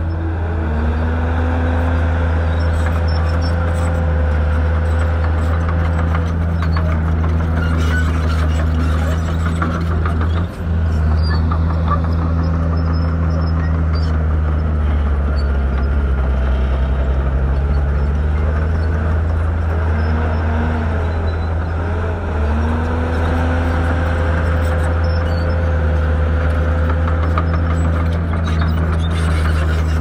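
Diesel engine of heavy earthmoving machinery running steadily, a deep drone with whining tones that rise and fall every few seconds. There is a brief dip about ten seconds in.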